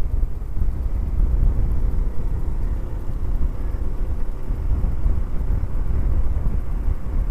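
Wind buffeting the microphone on a moving Honda C90 Cub, a steady low rumble, with the bike's small single-cylinder four-stroke engine running at a steady cruise beneath it.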